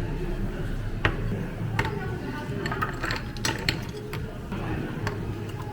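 Irregular clicks and clinks of cafe equipment and utensils being handled, over a steady low hum.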